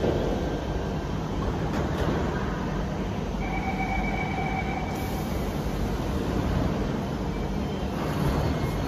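Metro train running: a steady rumble and rush of the moving carriage, with faint high whining tones in the middle and again near the end.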